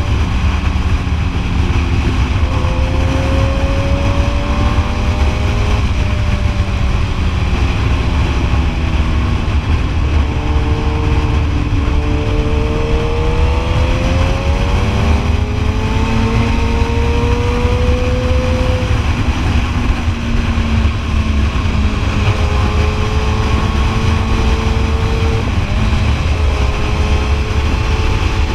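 Sport motorcycle engine under way, its pitch climbing and dropping suddenly several times as it changes gear, over heavy wind rumble on the helmet camera's microphone.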